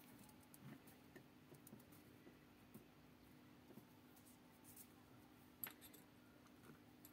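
Near silence: a faint steady hum with a few soft clicks from hands handling thin wires, one sharper click about three-quarters of the way through.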